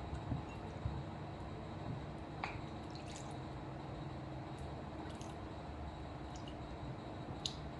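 Faint water splashing and dripping as hands rub an onion and a tomato in a glass bowl of water, with a few small clicks, over a steady low hum.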